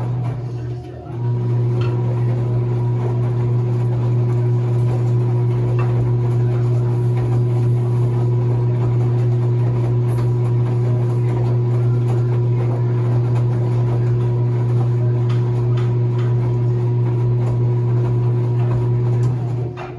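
Enxuta Soft washing machine's motor running with a steady low hum, dropping out briefly about a second in and again right at the end before picking back up.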